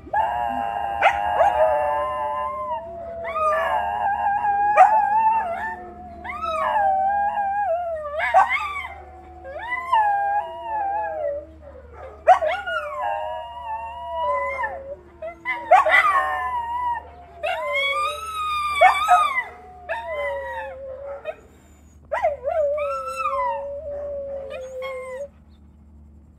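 Two small dogs howling together, long wavering howls that overlap and rise and fall in pitch, set off by sirens. The howling stops about a second before the end.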